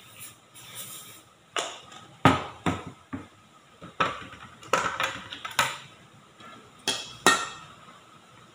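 Metal kitchenware knocking and clinking as baking tins, a mixing bowl and a spoon are handled: about ten sharp, separate knocks over five seconds.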